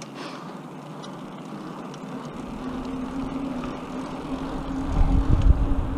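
Bicycle tyres humming on asphalt, a steady drone that sets in about two seconds in and grows louder as the bike picks up speed. Wind rumbles on the microphone over the last second.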